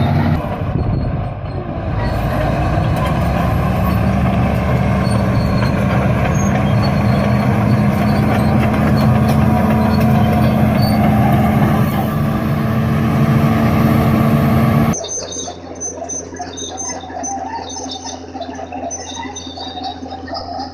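Heavy bulldozer diesel engine running steadily and loudly. About fifteen seconds in it cuts off abruptly to a quieter, different sound.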